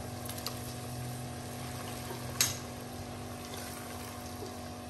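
Tomato paste frying in hot oil with browned onions in a pan, a steady sizzle as it is stirred in, with one sharp tap about two and a half seconds in and a low steady hum underneath.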